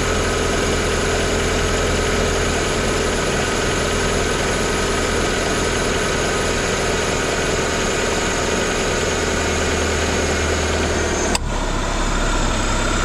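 Renault Clio 182's 2.0-litre four-cylinder engine idling steadily with the air conditioning switched on. About eleven seconds in there is a sharp click, after which the high hiss drops away and the engine's hum changes.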